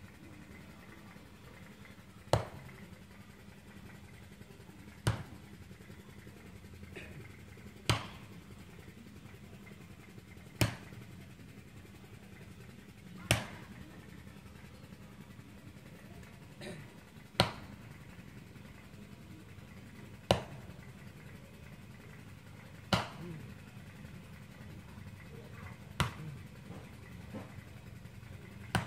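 Sharp knocks or strikes, one about every three seconds, over a steady low hum.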